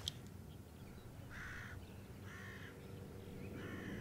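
Three faint bird calls, each about half a second long, spaced about a second apart.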